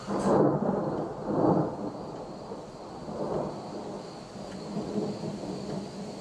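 Thunder rumbling over steady rain: a sudden loud clap at the start, a second peak about a second and a half in, then weaker rolling rumbles.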